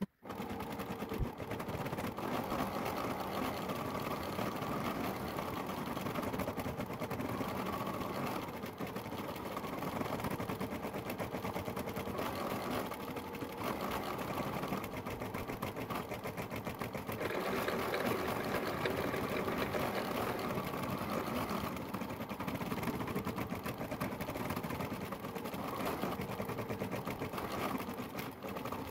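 Computerized embroidery machine stitching yellow lettering onto fleece, its needle running in a fast, steady rhythm. It runs a little louder for a few seconds past the middle.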